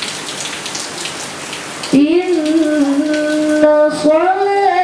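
A girl's voice reciting Quran in melodic tilawah style, entering about two seconds in with one long held note that bends upward near the end. Before the voice enters, an even hiss like rain.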